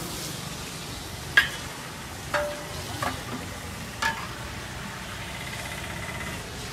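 Glasses and metal spoons clinking at a kava stall: four sharp, briefly ringing clinks, the first the loudest, over a steady hiss.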